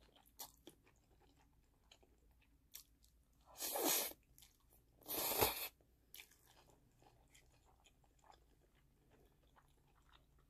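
Close-miked mouth sounds of someone eating black bean sauce noodles (jjajangmyeon): two loud slurps of noodles a little over a second apart near the middle, and soft wet chewing with small smacks and clicks the rest of the time.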